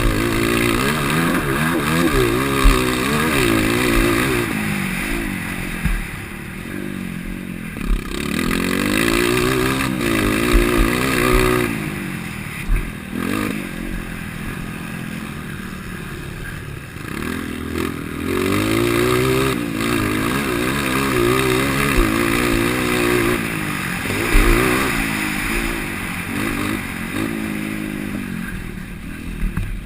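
A 230 cc motocross bike's engine, fitted with an aftermarket header and exhaust tip, revving up and down over and over as the throttle is opened and closed through a race lap. It comes with scattered knocks and clatter.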